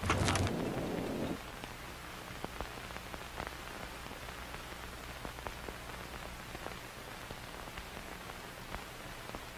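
Crackling static and hiss with a low electrical hum and scattered pops, the old-film crackle laid under archival footage. A louder rush of noise and hum opens it for about a second.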